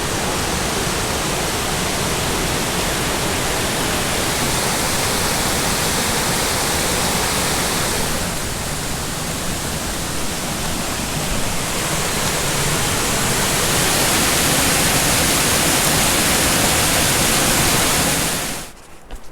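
Waterfall rushing: a loud, steady wash of falling water that shifts a little about halfway through and cuts off suddenly near the end.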